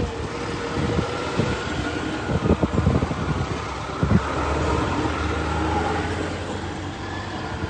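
Road traffic passing over a railway level crossing: cars driving by with a steady hum, and a few short thumps a couple of seconds in and again about four seconds in.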